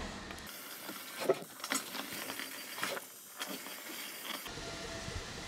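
Scattered light clicks and knocks over a steady hiss, the sharpest about a second in: clatter from an electric winch's cable and hook as it drags a car in.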